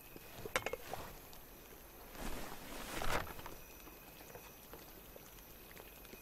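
Soft rustle of a parchment map being handled and unfolded: a few light clicks about half a second in, then two soft rustling swells, the louder about three seconds in, over a faint steady background.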